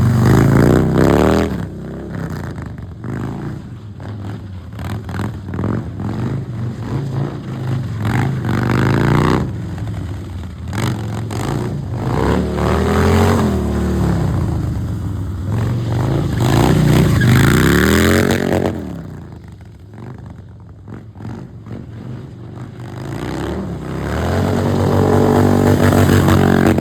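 Harley-Davidson V-twin motorcycle engines revving hard again and again, the pitch climbing and falling in repeated sweeps, with a quieter lull about two-thirds of the way through.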